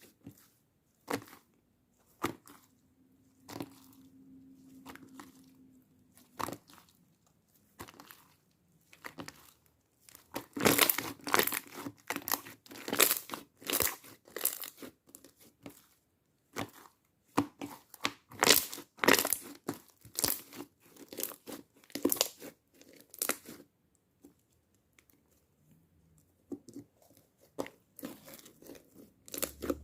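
Slime being squeezed and worked by hand, giving sharp crackling and popping sounds that come in dense runs with quieter pauses between.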